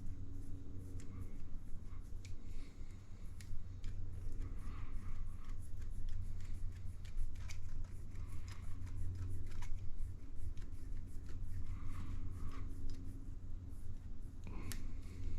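Small scattered clicks and rattles of RC buggy shock parts being handled and assembled by hand, over a steady low hum.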